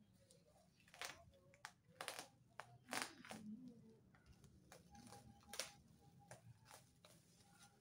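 Plastic bubble wrap rustling and crinkling as hands pull it off a cardboard box, with several sharp crackles spaced about a second apart.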